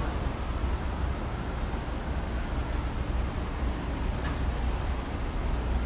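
A steady low rumble with a faint hiss over it and no distinct events.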